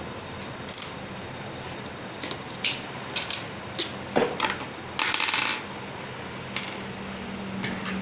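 Light metallic clicks and clinks of small bicycle parts and tools being handled, with a short rattle about five seconds in.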